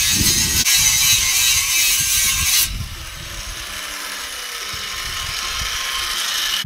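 Parkside angle grinder grinding rust off a steel spade blade: a loud, hissing grind of disc on metal. About two and a half seconds in, the disc comes off the metal and the grinder runs on free, noticeably quieter.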